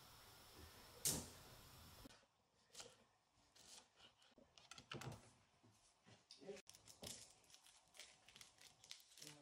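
Faint kitchen handling noises: one sharp knock about a second in, then scattered light clicks and knocks.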